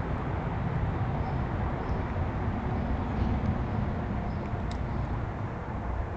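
Steady low outdoor rumble, typical of distant traffic or wind noise on the microphone, with a few faint, short high chirps or ticks, one clearer about three-quarters of the way through.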